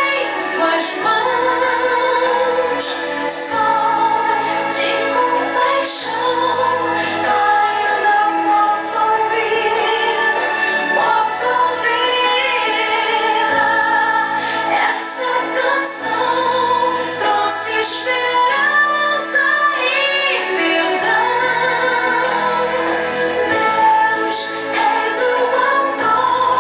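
A song: a female voice singing a melody over instrumental backing music.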